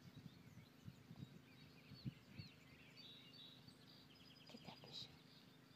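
Faint birdsong, short chirps and trills, with a few soft low thumps scattered through it.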